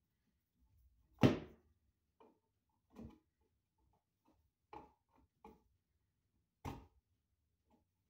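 Knocks and clicks from hand work on a light switch in its wall box: one sharp knock about a second in, then several fainter ones spread over the following seconds.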